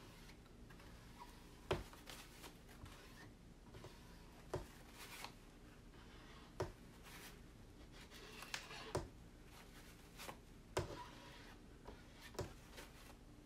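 A plastic scraper card scraping leftover chalk paste off a silkscreen transfer on a board: soft scraping with a sharp click every second or two.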